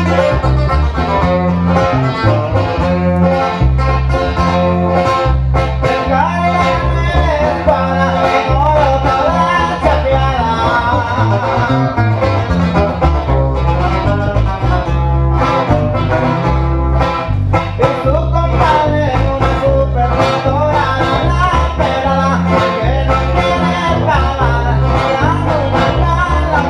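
A live sierreño band playing: a twelve-string acoustic guitar strumming over a pulsing bass line, with a man singing through the PA for stretches of it.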